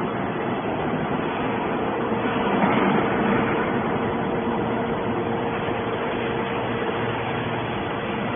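Hydraulic scrap metal baler running: a steady mechanical noise with a constant hum throughout.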